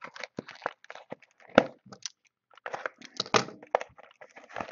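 Foil trading card pack wrappers crinkling and crackling as they are handled, in irregular bursts with a few sharp cracks.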